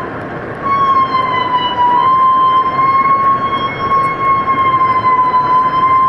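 Humpback whale song: one long, high moan held steady with a slightly wavering pitch, over a constant hiss. It breaks briefly at the start and picks up again under a second in.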